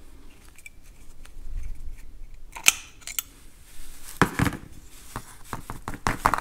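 Small metal clicks and scrapes as a screwdriver backs a slotted throttle-plate screw out of a Farmall M carburetor's throttle shaft, then the carburetor body knocking and clicking as it is turned over in the hands, with a quick run of sharp clicks in the last two seconds.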